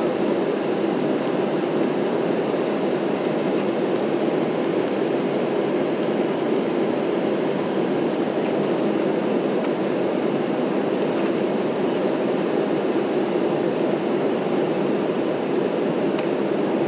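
Steady cabin noise of a jet airliner in flight after takeoff: the low rumble of the wing-mounted engines and rushing airflow, heard from a window seat over the wing.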